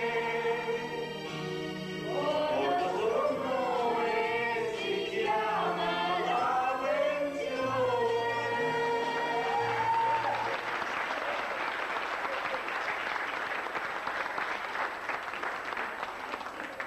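Men singing together over an accompaniment with a stepping bass line; the song ends on a long held note about ten seconds in, and the audience applauds for the rest.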